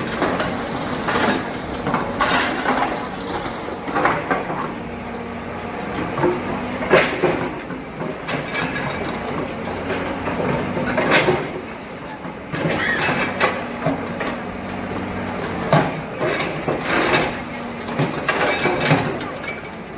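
People's voices talking over a steady engine-like hum, with a few sharp knocks about 7, 11 and 16 seconds in.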